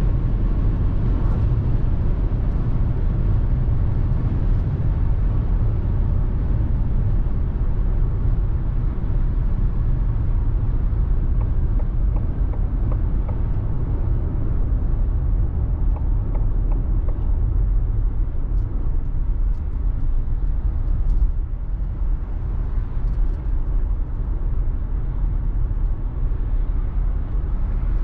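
Inside the cabin of a 2021 Ford Mustang Mach-E AWD, a battery-electric SUV, at high speed: a steady rumble of tyre and wind noise, with no engine note. It eases a little about two-thirds of the way through.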